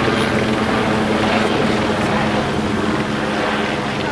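Helicopter circling overhead, its engine and rotor making a steady drone.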